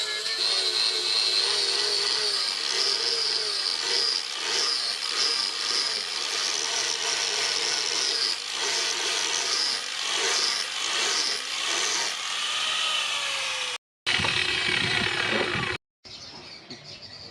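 A power tool running under load, its pitch wavering as it works the material. The sound changes abruptly twice near the end.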